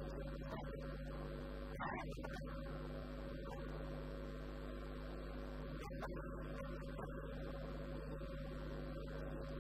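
Steady electrical mains hum with background hiss on the recording, broken by a few faint clicks, about 2 s and 6 s in; no voice.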